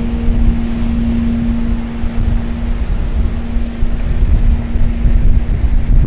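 Wind buffeting the microphone over surf washing against a rocky shore, a loud, steady low rumble. A soft held note of background music fades out about three seconds in.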